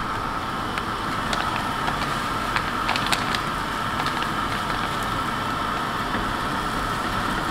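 Steady sizzle and hiss of onions and spices frying in butter in a steel pot on a gas stove, with a few light clicks over it.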